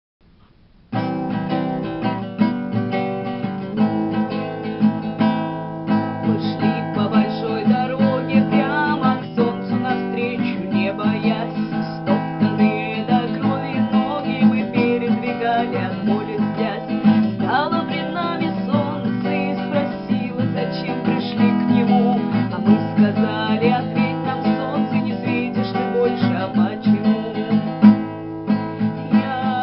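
Acoustic guitar music with a strummed, plucked rhythm, starting about a second in.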